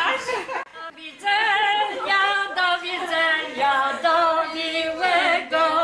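A group of people singing together without accompaniment, women's voices most prominent. The singing pauses briefly about a second in, then runs on in held, steady notes.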